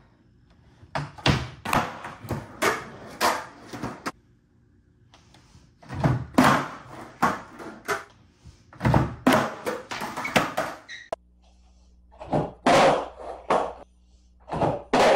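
Skateboard rolling on a concrete floor, with sharp pops and wooden clacks as the board strikes and slides along a wooden ledge and lands, in about five separate runs of tricks.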